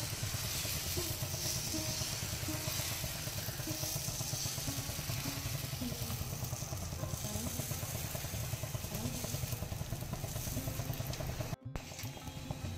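Background music with a steady low beat and short melody notes. The sound drops out for a moment near the end.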